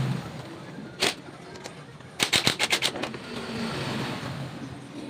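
Sharp metallic clicks of hand tools while a scooter's radiator water pump is being taken off: a single click about a second in, then a quick run of about seven clicks in the middle, over a low engine hum that swells and fades.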